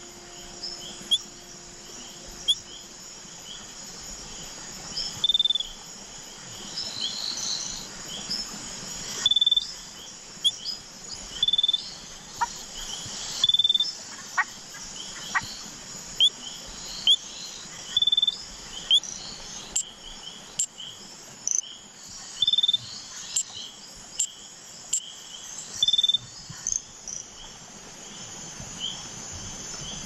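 Night chorus of small tree frogs: short, high chirping calls repeated every second or so, over a steady high insect trill.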